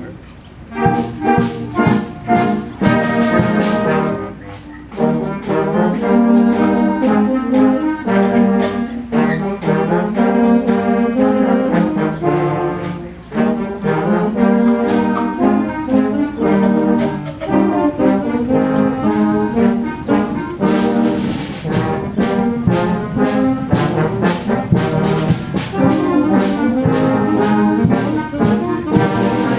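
Youth wind band playing an arrangement of American folk tunes, brass and woodwinds together in bouncy, rhythmic phrases. The music drops back briefly just after the start and again at about four and thirteen seconds before the full band comes back in.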